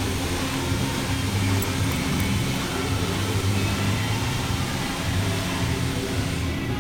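A steady low mechanical hum with a hiss over it; the hiss drops away near the end.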